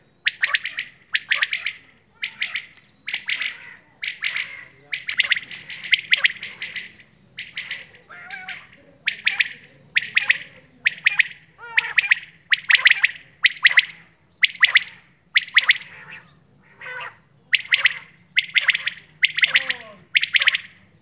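Quail calling over and over, short rapid-pulsed calls at about one a second, with a faint steady low hum underneath.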